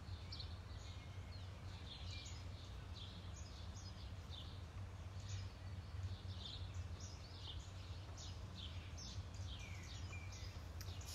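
Small songbirds chirping, with many short falling chirps scattered through, over a steady low outdoor rumble.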